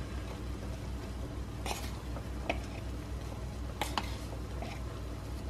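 A spoon clinking a few times against a tin of gravy powder and the saucepan as the powder is scooped into simmering sauce, over a low steady hum.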